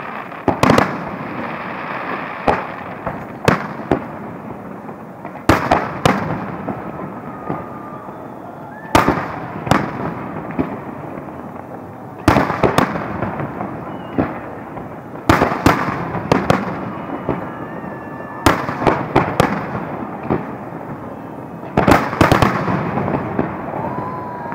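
Aerial firework shells bursting in a display: loud bangs every two to three seconds, some in quick pairs, over a steady hiss and crackle of burning stars.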